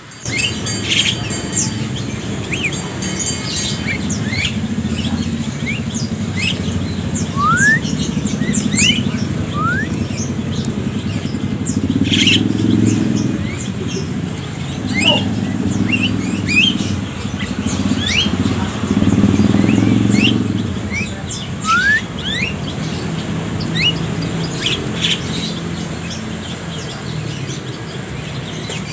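A caged flock of Javan mynas (jalak kebo) calling, many short rising chirps overlapping one another, over a low engine rumble that swells and fades several times.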